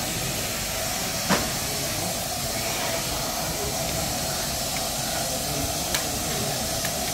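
Steady hiss of steam from a standing 15-inch gauge steam locomotive, with a single sharp knock about a second in.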